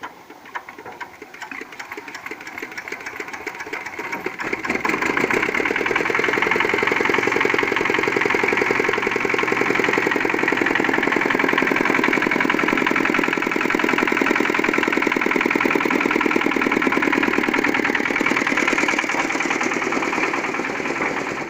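Small diesel engine of a mini concrete mixer starting from a hand crank: it picks up speed and loudness over the first five seconds or so, then runs steadily with a fast, even knock. The sound cuts off abruptly at the very end.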